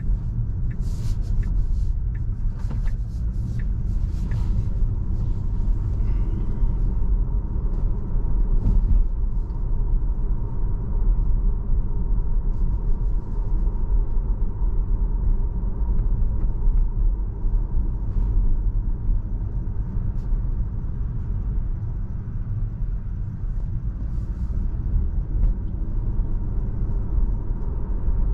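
Tesla electric car driving, with a steady low rumble of road and tyre noise and a faint steady high whine. A few sharp clicks come in the first few seconds.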